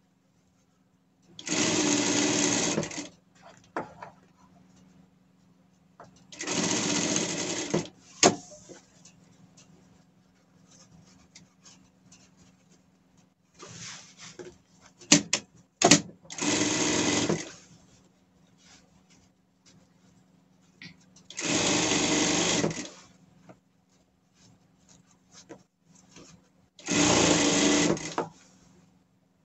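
Industrial sewing machine stitching fabric in five short runs of a second or two each, stopping between runs while the fabric is repositioned, over a low steady hum. A few sharp clicks come about halfway through.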